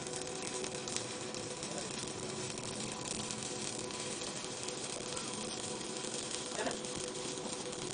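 Stick (SMAW) welding arc crackling and sizzling steadily while a vertical 3G weld is run, with a faint steady hum underneath.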